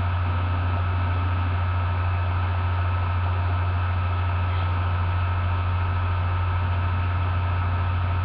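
Steady low electrical mains hum, even in level throughout.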